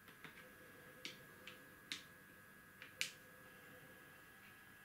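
Wooden backgammon checkers tapped and set down on a wooden board: a series of faint, light clicks, the sharpest about three seconds in.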